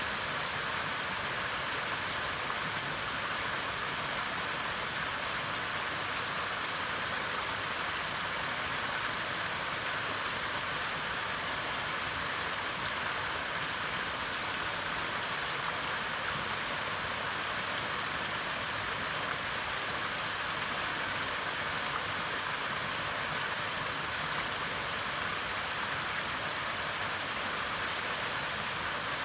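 Waterfall: water falling and rushing in a steady, unbroken hiss.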